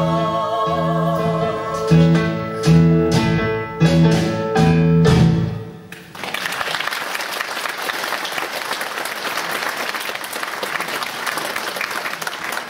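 Women singing the last held note of a song over instrumental backing, closing on a few loud accented chords that stop about six seconds in. Then an audience applauding steadily.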